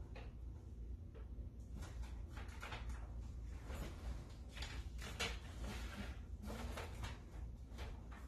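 Large paper-backed wall decal rustling and crinkling in short, irregular rasps as it is held up and smoothed against the wall, with a low steady hum underneath.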